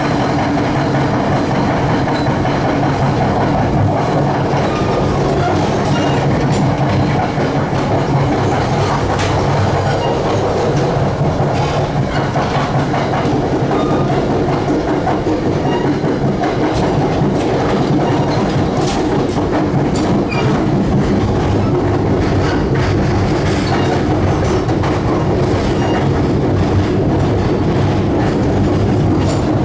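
Passenger train running at speed, heard from on board: a steady rumble with scattered clicks from the wheels over the track and a few brief, faint squeaks.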